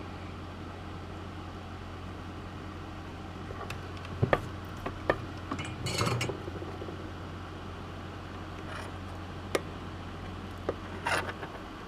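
Scattered small clicks and taps of electronic components and hand tools handled on a circuit board, with a brief rustle about six seconds in, over a steady low hum.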